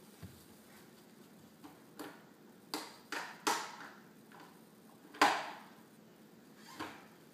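A plastic toy cement-mixer truck clacking and knocking as a baby handles it on a hardwood floor: several sharp knocks, the loudest about five seconds in.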